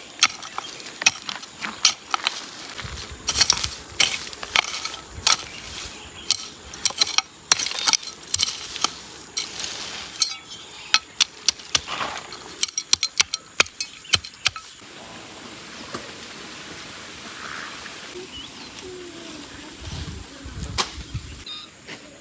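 Metal garden tool digging a planting hole in stony soil: repeated irregular clinks and scrapes as the blade strikes the earth and small stones. The strikes stop about fifteen seconds in, leaving a quieter steady hiss.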